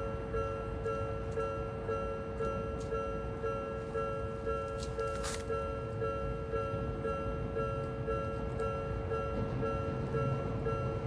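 A repeating electronic ding, about two to three strokes a second, sounding steadily over a low rumble that grows louder near the end.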